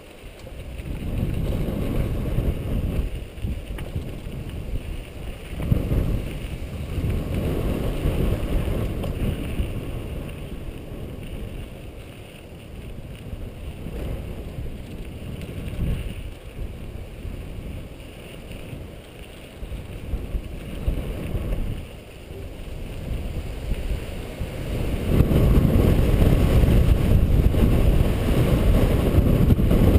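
Wind buffeting the microphone and mountain bike tyres rumbling over a dirt singletrack, a rough rumble that rises and falls and gets much louder for the last few seconds.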